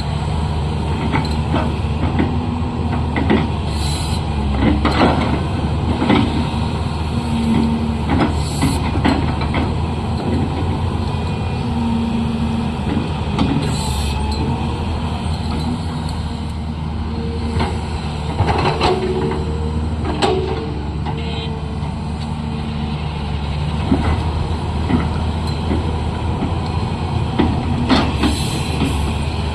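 Diesel engine of a heavy earthmoving machine working steadily, with scattered knocks and clanks and short whines over the engine hum. A few brief hisses come about four, eight, fourteen and twenty-eight seconds in.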